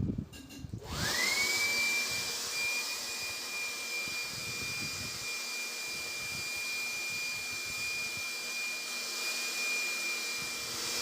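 Electric air blower rigged as a homemade vacuum cleaner, switched on about a second in: its whine climbs quickly, then holds as a steady high whine over a rushing-air hiss.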